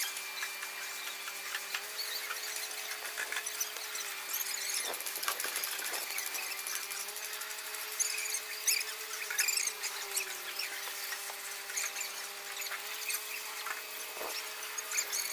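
Shovels and hoes scraping and clinking through wet concrete, with scattered high squeaks, busiest about halfway through, over a faint steady hum that shifts in pitch every few seconds.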